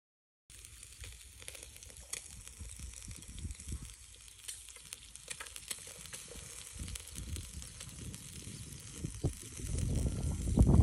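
Lamb and vegetables sizzling on the wire grate of a charcoal shichirin grill: a steady hiss with small scattered crackles. A louder low rumble builds near the end.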